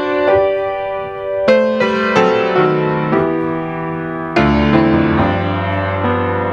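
Solo piano playing a slow instrumental prelude, a new chord struck every second or so, with a fuller, louder chord about four and a half seconds in.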